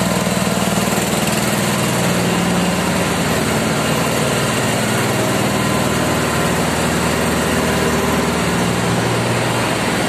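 Steady loud din of a ship's engine room with its machinery running: an even roar spread from low to high pitches, with a steady low hum beneath it.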